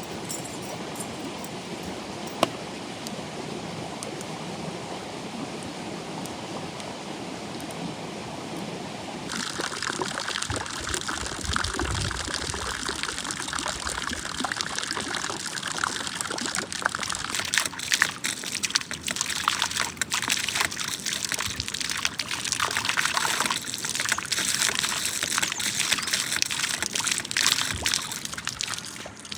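Running water, trickling and splashing. About nine seconds in it changes abruptly to a louder, brighter splashing full of small clicks.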